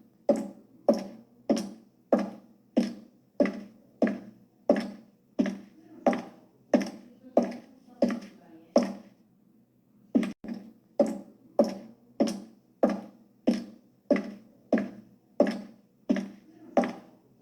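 High-heeled shoes walking on a hard floor: sharp heel clicks at an even pace of about three steps every two seconds, each with a short echo. The steps pause briefly about halfway through, then pick up with a quick double step.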